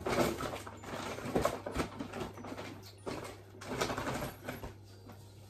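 Rustling and rummaging through gift-wrapping supplies such as paper and ribbons, in irregular bursts that thin out near the end.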